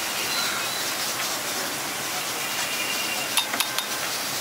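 Liquid poured from a funnel onto a hot flat griddle around pieces of meat, sizzling and hissing with steam. A few sharp clicks come near the end.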